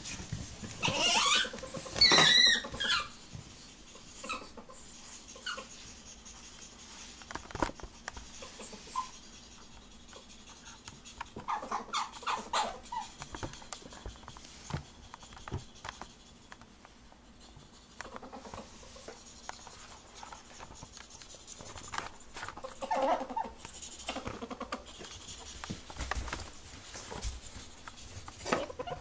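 Ferrets calling while mating: loud high-pitched cries that bend up and down about one to three seconds in, then shorter bursts of calls around twelve and twenty-three seconds.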